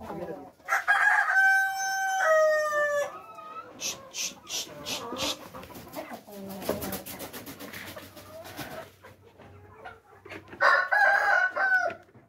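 A rooster crowing twice, first about a second in and again near the end, each crow a long call that is held and then drops in pitch. Between the two crows there is the clucking of hens.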